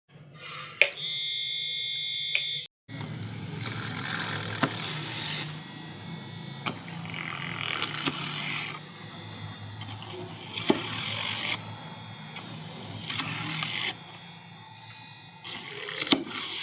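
Homemade drill's small electric motor running: first a steady high whine for about two seconds, then, after a brief break, a steady low hum with several louder grinding stretches as it works.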